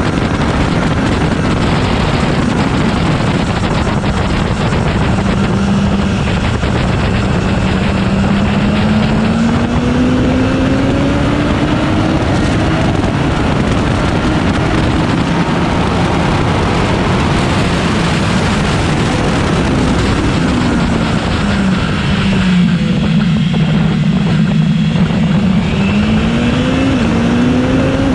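BMW S1000XR's inline-four engine at speed, revs climbing slowly for several seconds, then holding steady, then rising in short quick steps near the end. Heavy wind rush on the low, fork-mounted camera runs over it throughout.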